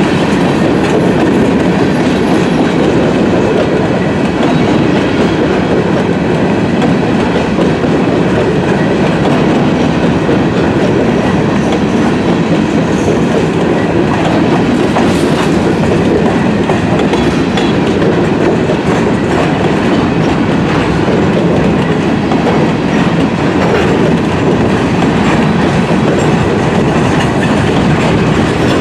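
Covered hopper cars of a freight grain train rolling past close by: the steady, loud rumble of steel wheels on rail.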